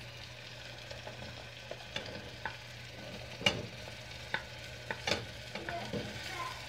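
A wooden spatula scraping vegetables off a plate into a pressure cooker: a series of short knocks and taps as potato pieces, beans and peas drop in and the spatula strikes the plate and pot, the loudest about halfway through. A faint sizzle of the onion-tomato mixture frying in the pot runs underneath.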